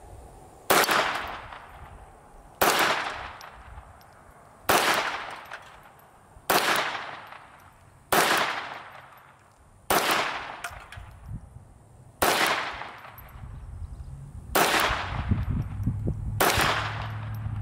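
Browning Buck Mark .22 semi-automatic pistol firing nine single shots at a slow, even pace, about one every two seconds, each crack trailing off over about a second.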